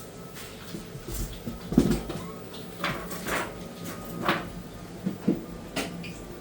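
Packing material being handled and set down while an air conditioner is unboxed: several separate knocks and scrapes, unevenly spaced.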